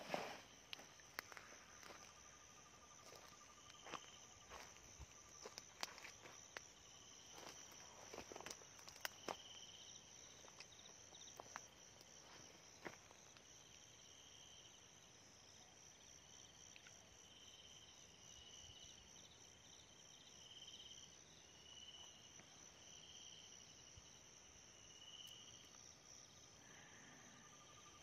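Faint night insect chorus: a steady high-pitched cricket trill, with a second caller's short chirps repeating about once a second through the middle. Scattered light rustles and clicks come in the first dozen seconds.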